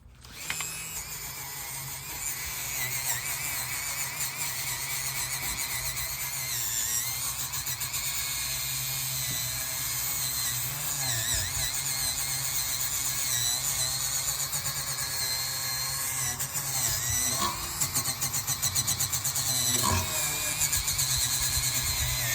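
A power tool running steadily with a high wavering whine; from about seventeen seconds in its sound turns into a fast, pulsing chatter.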